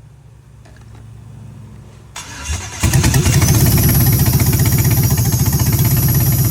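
A 5.3L LS V8 on an engine stand catches about two and a half seconds in and runs loud and rough. The owner puts the rough running down to two unplugged injectors and a broken coil pack.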